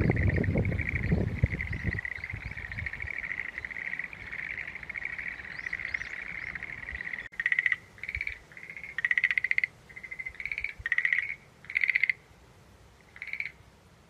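Frogs calling from a marshy pond: first a continuous pulsed trilling chorus, then, about seven seconds in, a series of separate short pulsed calls, each under half a second. A louder low rumble fades out over the first two seconds.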